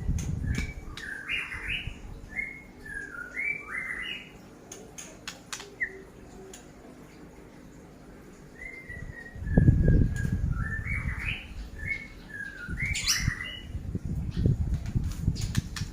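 A songbird singing runs of short whistled notes that slide up and down, in two bouts with a pause between them. Low rumbling knocks run underneath, loudest about ten seconds in.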